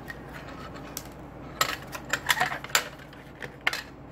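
Sharp plastic clicks and light clatter as the plastic case of a plug-in pest repeller is handled and its circuit board is worked out of the housing. There is a single click about a second in, a quick cluster of clicks between about one and a half and three seconds in, and one more near the end.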